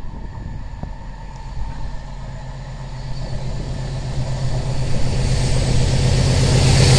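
A Colas Rail Freight diesel locomotive hauling a freight train approaches. Its engine is a steady low drone that grows louder throughout, with the hiss of wheels on rail rising near the end.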